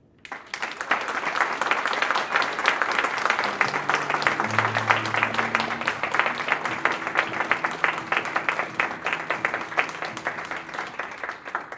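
Audience applause, rising quickly just after the start, going on for about ten seconds and dying away near the end. A few faint low held notes sound under it in the middle.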